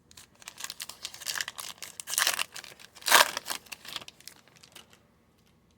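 Foil trading-card pack wrapper crinkling and tearing as it is handled and ripped open, in a dense crackle for about four and a half seconds, loudest a little past the middle.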